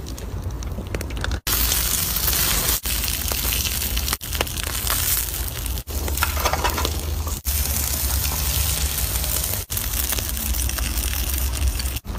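Seafood sizzling in an aluminium foil tray on a hot stone slab: a steady crackling hiss over a low rumble, cut off for an instant every second or two.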